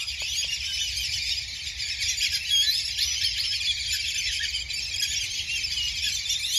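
Many small birds chirping at once in a dense, unbroken chorus.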